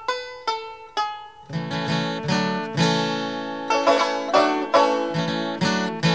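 Background music on plucked string instruments, banjo-like: single picked notes at first, then fuller chords with a bass line joining about a second and a half in.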